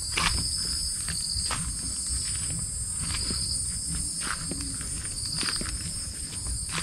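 Forest insects shrilling in a steady high drone, with a brighter short trill recurring every one to two seconds. Soft footsteps on a dirt trail sound underneath.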